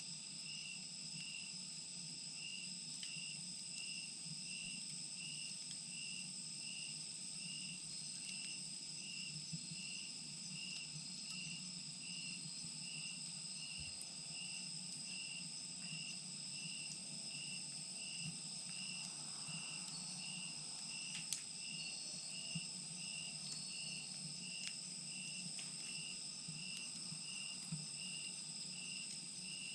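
Insects chirping steadily: two continuous high trills and a pulsed chirp repeating about one and a half times a second. A wood fire in a clay chimenea crackles faintly underneath, with a few soft pops scattered through.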